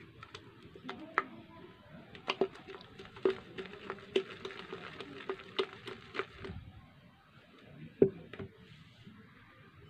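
A bucket of blended tomato and shallot mash being swirled by hand on wooden planks: a dozen or so scattered knocks and clicks, the loudest about eight seconds in. A faint steady hum runs under the knocks for the first few seconds.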